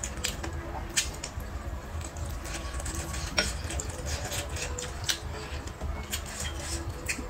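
Close-miked eating: scattered sharp clicks of wooden chopsticks against a ceramic rice bowl, with chewing, over a steady low hum.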